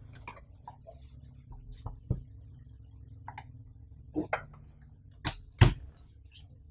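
Cardboard keyboard box being turned over and handled on a table: scattered light taps and scuffs, then two sharp knocks a little past halfway as the box is set down.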